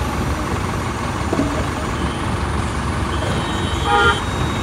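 Diesel engine of a hydra mobile crane running steadily under load while the cranes hold and lower a heavy wheeled excavator. A brief high-pitched tone sounds about four seconds in, the loudest moment.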